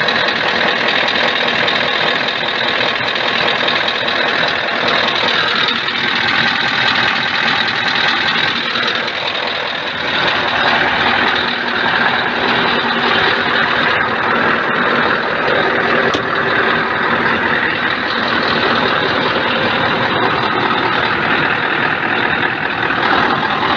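Scania R580's 16-litre V8 diesel engine running steadily at idle.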